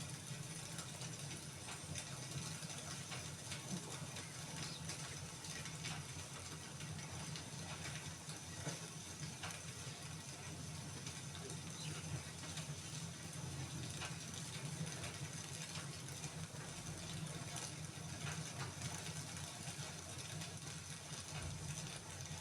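Wood fire crackling in a fireplace: irregular small pops and snaps over a steady soft hiss.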